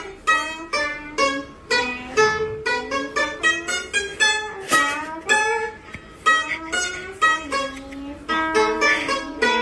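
A round-bodied Chinese plucked lute played as a slow melody: single plucked notes, about two a second, each fading away, some sliding in pitch.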